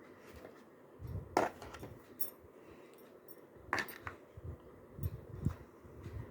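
Light handling sounds of plastic kitchenware, such as a microwave idli maker's lid and trays. There are two sharp clicks, about a second and a half in and just before four seconds, then a few soft knocks about five seconds in.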